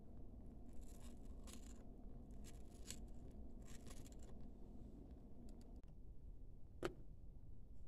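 Faint cutting of green onion with a tiny knife on a miniature wooden cutting board: a few short, scratchy slicing strokes over the first half, then a single sharp click near the end.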